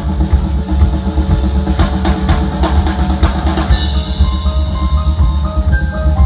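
Live rock band playing an instrumental passage with heavy bass and a full drum kit. About two seconds in the drums play a fill that ends on a cymbal crash, followed by a melody of short, high notes.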